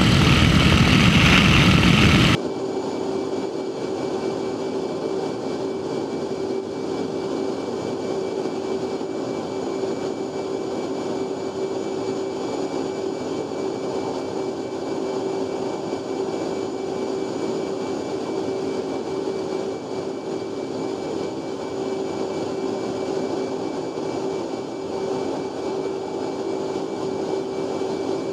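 Loud wind rush and engine noise aboard a propeller photo plane, cut off after about two seconds. It gives way to the steady, quieter drone inside an F/A-18 Hornet cockpit in flight, with a constant hum.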